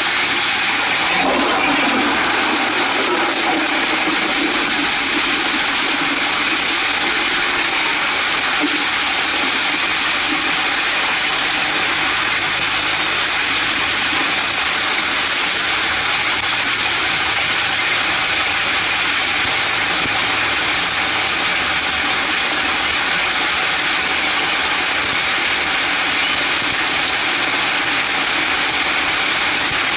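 Heavy rain drumming on a moving vehicle's roof and windscreen, a dense, steady rattling hiss, with the vehicle's engine running underneath.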